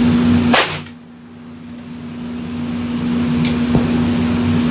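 A single suppressed 9mm gunshot from the BR9 with its suppressor, a sharp crack about half a second in. A steady low hum runs underneath, and there is a faint click later on.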